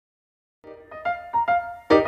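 Background music: a piano melody of quick single notes that begins about half a second in, after a brief silence.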